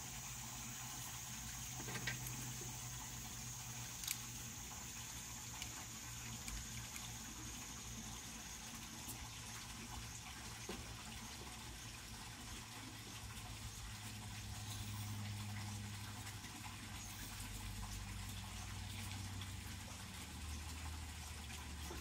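Gas hissing from a can of air-conditioning oil additive through the charging hose into the AC system's low-pressure port, fading away over the first several seconds, over a steady low engine hum. A few light clicks.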